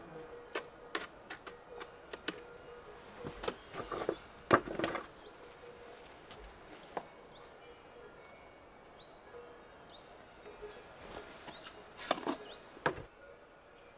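Irregular clicks and knocks of stone against stone as loose stones are fitted into a hole in an old stone wall. The knocks are loudest about four and a half seconds in, with another cluster near the end.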